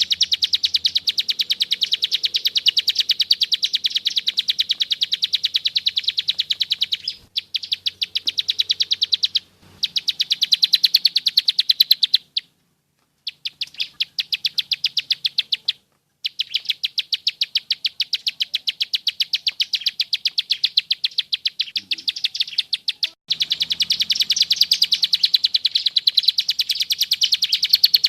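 Ciblek sawah (plain prinia) singing its fast, sharp 'klik' trill: long unbroken runs of high, ticking notes at about ten a second. The runs are interrupted by brief pauses, twice falling fully silent for about a second.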